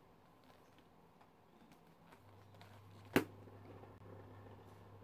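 Handling noise: one sharp tap about three seconds in, over a faint steady low hum.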